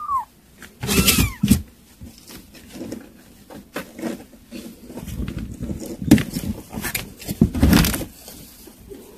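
Kitten meowing, one short falling meow right at the start and a louder meow about a second in, followed by irregular rustling and scuffling on newspaper and cardboard as the kittens move about, with a few louder rustles near the middle and toward the end.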